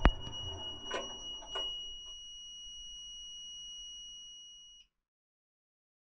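Electronic beeper of a Gorenje WA 65205 washing machine sounding one steady high-pitched tone for about five seconds. The drum's running noise stops with a sharp knock at the start, followed by two faint clicks in the first two seconds.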